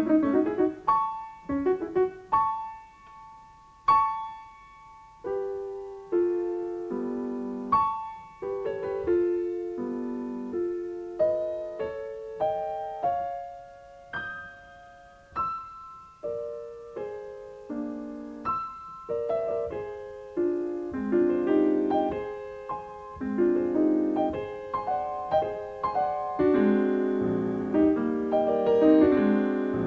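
Solo grand piano playing a classical piece. Sparse single notes and chords with short gaps in the first half, growing denser and fuller over the last third.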